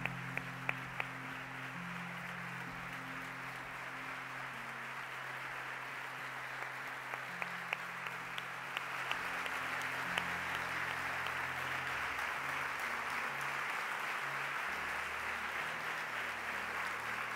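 Audience applauding over soft background music with sustained low notes. The applause grows louder about halfway through.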